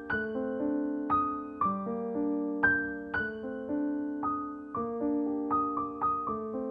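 Background piano music: single notes and chords struck a few times a second, each ringing and fading.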